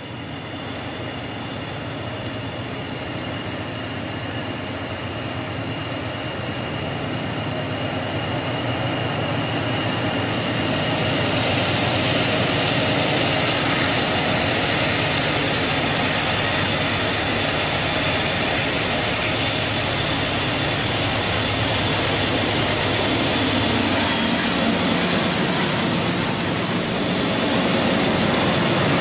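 Diesel locomotives leading a container train approach and pass close by. The engines' low, steady drone grows louder over the first ten seconds or so, then holds loud, with a thin high whine over it through the middle.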